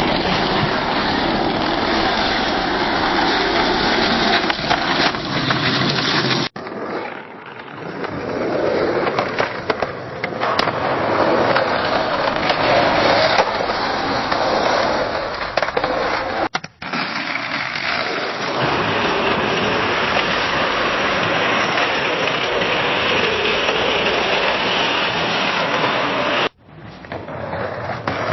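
Skateboard wheels rolling over pavement: a steady, gritty rolling rumble. It comes as separate takes, each cut off abruptly with the next fading back in, about every ten seconds.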